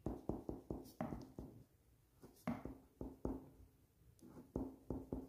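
Pen writing on a sheet of paper: a string of short, irregular taps and scratches as the strokes go down.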